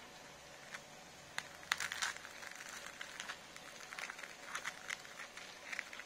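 A knife cutting down through the crisp ginger-beer batter of a piece of deep-fried fish: irregular crackling and crunching that starts about a second in.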